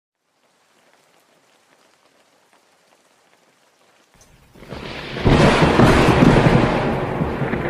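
Cartoon sound effect: a faint crackling hiss, then a loud rushing rumble that swells up about four and a half seconds in and holds.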